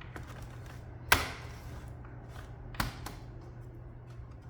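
Plastic snap-clips of a Dell Inspiron 15 5000 series laptop's base cover popping loose as a guitar pick pries around the edge: a sharp click about a second in, another near three seconds, and fainter ticks between.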